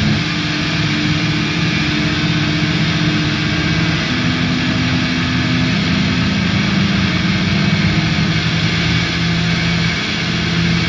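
Drone/noise music: a dense wall of distorted noise over sustained low droning tones, which shift in pitch about four seconds in.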